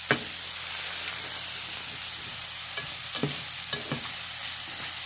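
Onions, tomatoes and chili sautéing in oil in a nonstick frying pan, sizzling steadily, while a plastic spatula stirs them, knocking and scraping against the pan a few times, mostly after the middle.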